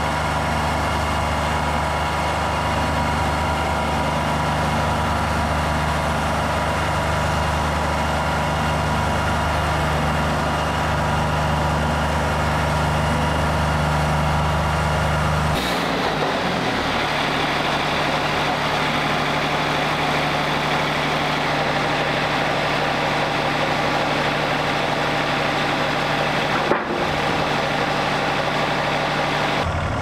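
Wood-Mizer LT40 Wide sawmill running, its Yanmar diesel engine droning steadily while the band blade makes a slow cut through a poplar log. The blade is dull. The engine note shifts about halfway through, and there is a brief click near the end.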